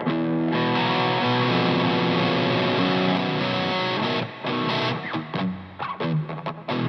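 Distorted electric guitar opening a rock song: one chord rings out for about four seconds, then gives way to short picked notes and chord stabs with gaps between them.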